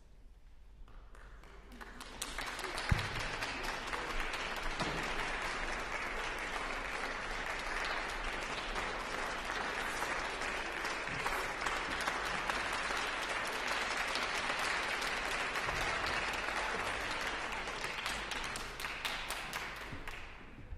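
Audience applauding in a concert hall. The clapping swells about two seconds in, holds steady, and dies away near the end. A single thump about three seconds in is the loudest sound.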